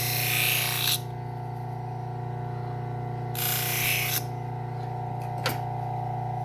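Bucktool low-speed belt sander running with a steady hum, fitted with a leather stropping belt loaded with white compound. A knife edge is drawn across the moving leather twice, each pass a hiss of about a second, to strip the burr, and there is one sharp click near the end.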